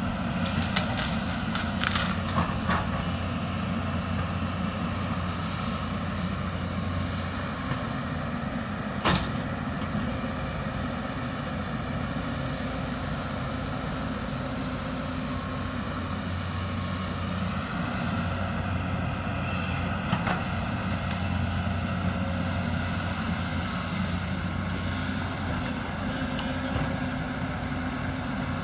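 Hyundai 220 excavator's diesel engine running steadily under digging load, with scattered metallic clicks in the first few seconds and a single sharp knock about nine seconds in.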